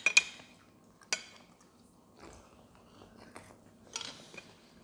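Metal fork clinking and scraping on a plate while eating: a few sharp clinks, the loudest at the very start, another about a second in, and a couple more near the end.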